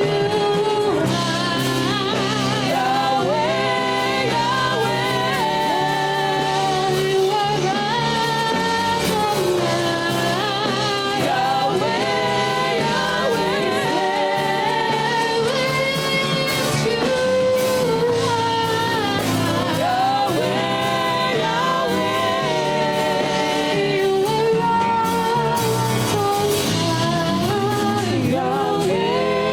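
Live gospel worship music: singing with a lead voice over sustained keyboard and guitar accompaniment.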